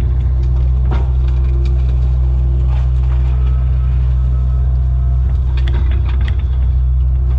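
John Deere 50G compact excavator's diesel engine and hydraulics running steadily under load, heard from inside the cab, as its Diamond mulcher head chews into brush. A few sharp cracks and knocks stand out about a second in and again near the end.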